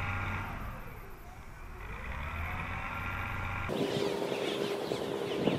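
An engine running steadily, its pitch sagging and then climbing again. A little over halfway through it cuts off abruptly into a different ambience: a steady hum with many short bird chirps.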